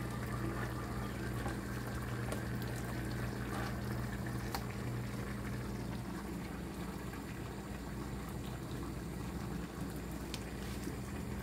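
Pot of rice simmering on the stove: a steady bubbling with a low hum under it, the hum dropping off about halfway through. Faint soft handling noises of wet chicken pieces are mixed in.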